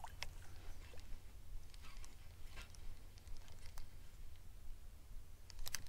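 Quiet open-water ambience: a low steady rumble with a few faint, scattered clicks.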